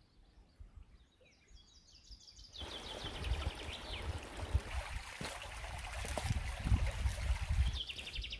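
Small birds chirping, then from about two and a half seconds in, a shallow stony creek running steadily, with birds still calling over it and a low rumble underneath.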